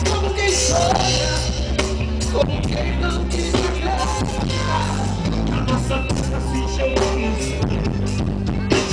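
A live band playing loud amplified music over the sound system, with a drum kit beating steadily, a bass line and some singing.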